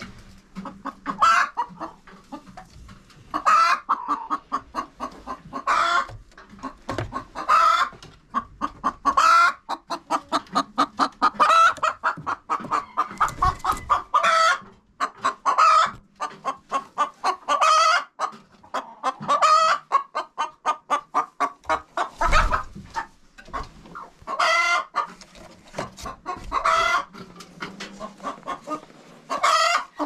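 Chickens in a coop clucking and cackling: runs of quick clucks, each building to a louder drawn-out squawk, repeating about every two seconds.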